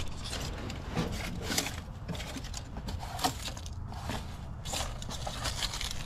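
Scattered small clicks, knocks and scrapes of equipment being handled, over a steady low rumble.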